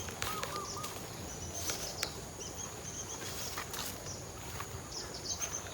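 Rural outdoor ambience: small birds chirping briefly now and then over a steady high insect drone, with a few light clicks.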